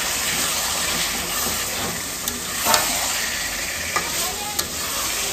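Chicken pieces sizzling in spiced oil in a large aluminium karahi while the masala is sautéed down, stirred with a metal spatula. A steady frying hiss runs throughout, broken by a few sharp scrapes and knocks of the spatula against the pan, the loudest just under three seconds in.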